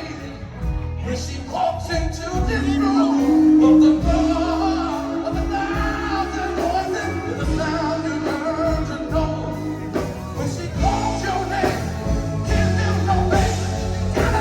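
Music with singing and a steady bass beat.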